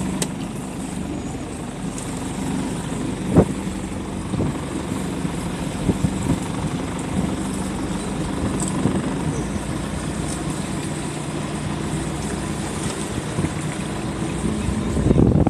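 Boat's outboard motor running steadily at low speed, a low even drone with water and wind noise over it. A single sharp knock comes about three and a half seconds in.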